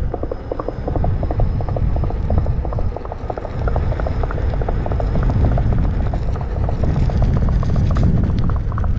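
Coconut-shell clip-clop hoofbeats from an electric unicycle alerting-system horse sound pack, played through the King Song 16X's built-in speaker: a quick, steady run of knocks, several a second, over a steady low rumble.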